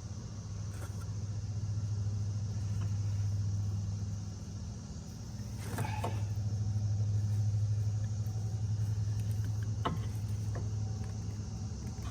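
A steady low mechanical hum throughout. Over it, a few light knocks and clicks of suspension parts being worked into place come about halfway through and again near the end.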